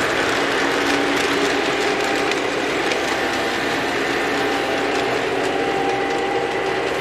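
Model train running on the layout track: a steady mechanical whir of the locomotive's motor and gearing, with faint clicks from the wheels on the rails.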